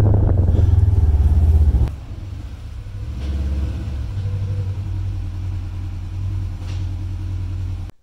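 Polaris RZR 900 S side-by-side's twin-cylinder engine running with heavy wind buffeting the microphone for the first two seconds. It then drops suddenly to a quieter, steady idle that stops abruptly near the end.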